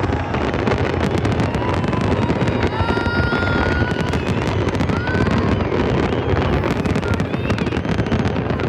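A large fireworks display going off without pause: rapid bangs and crackling over a continuous low rumble, with a few short whistling tones.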